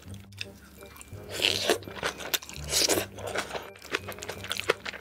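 Close-miked ASMR eating: chewing and biting into a mouthful of spicy food, with many small wet clicks and two louder, noisier mouthfuls about one and a half and three seconds in.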